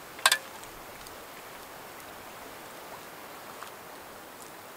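A single sharp clink of a metal spoon against a metal cook pot, just after the start, over a steady rushing background noise. A few faint ticks of handling follow.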